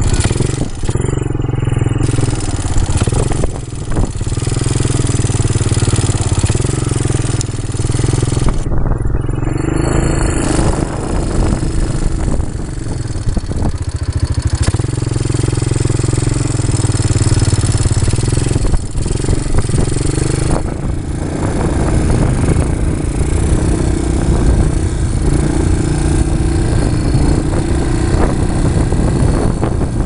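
Quad bike (ATV) engine running steadily while riding across sand, with a few brief knocks.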